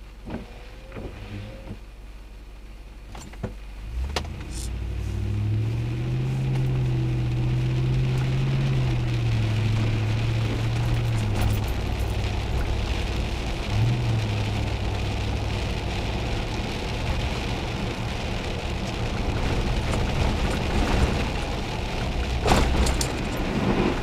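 A car pulling away from a stop on a wet road: the engine note rises about four seconds in, then holds as a steady hum under the hiss of tyres on wet pavement.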